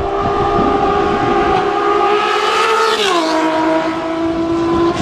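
Inline-six motorcycle engine at high revs, a steady high-pitched howl as it approaches. Its pitch drops quickly about three seconds in as it passes, then holds at the lower note.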